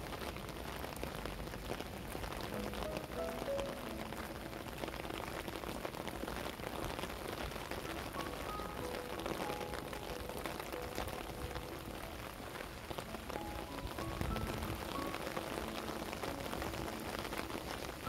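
Steady rain pattering in a dense, even patter, with soft, slow background music of sparse melodic notes underneath.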